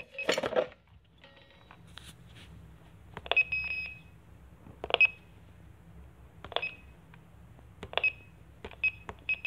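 Buttons pressed on a backlit electronic keypad panel, each press giving a click and a short high beep. The presses come about every one and a half seconds, then several in quicker succession near the end, over a faint low hum.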